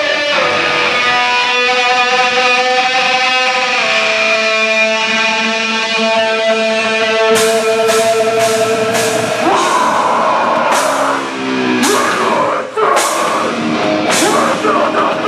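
Live rock band music: guitar notes held and shifting for the first seven seconds or so, then the drums come in with repeated crashing cymbal hits and the band plays heavily.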